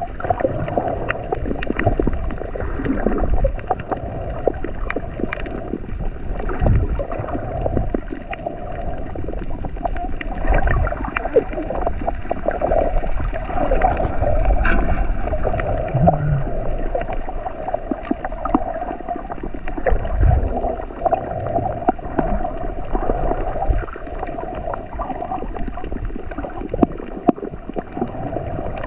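Underwater sound picked up by a snorkeler's GoPro: muffled water movement and gurgling, with scattered faint clicks over a steady hum.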